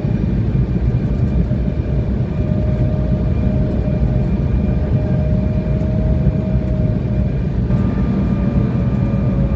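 Jet airliner cabin noise on final approach: a loud, steady low rumble of engines and airflow, with a faint whine from about two seconds in that slides slightly lower near the end.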